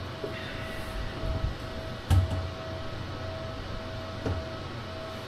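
A sharp knock about two seconds in and a lighter one a little after four seconds, from parts being handled and fitted on an LG RESU16H Prime battery cabinet.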